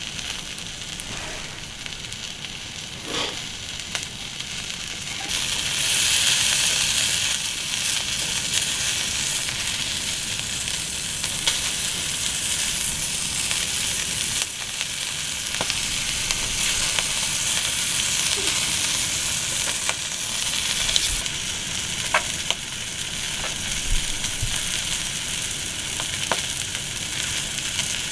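Food sizzling in a pan over a wood fire: a steady frying hiss that gets louder about five seconds in, with a few sharp pops.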